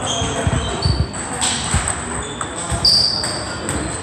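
Table tennis play in a sports hall: a run of ball knocks in the first couple of seconds, and short high squeaks, the loudest about three seconds in, over a background of distant voices.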